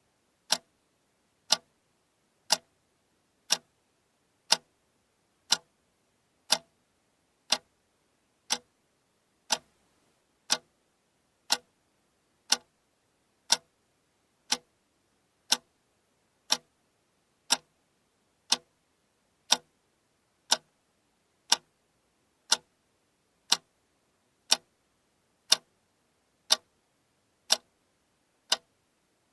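Alarm clock ticking once a second, in sharp, even clicks.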